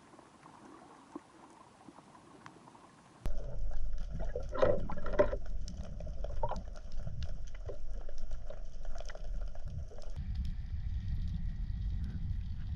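Underwater sound picked up by a diving camera: a low steady water rumble with bubbling gurgles and small clicks. It comes in suddenly about three seconds in, after near silence.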